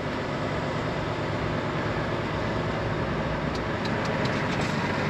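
A lorry's diesel engine running at low speed, heard from inside the cab as a steady low drone, with a few light ticks about three and a half seconds in.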